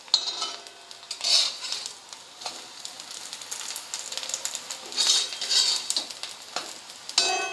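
Oil sizzling under small leftover-rice patties shallow-frying on a griddle (tawa). A metal spatula scrapes and taps on the pan in several short bursts as the patties are lifted and turned.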